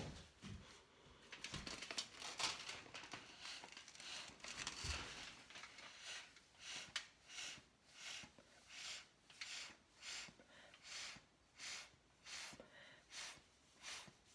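Puffs of breath blown through a drinking straw onto wet acrylic paint, fanning the paint outward. Faint and airy: a few longer, uneven blows at first, then a steady run of short puffs about one every 0.7 s.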